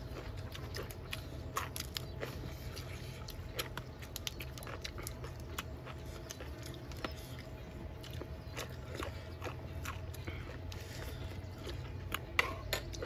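Close-up chewing as people eat rice and grilled pork intestine by hand, with many small wet mouth clicks scattered throughout, over a low steady hum.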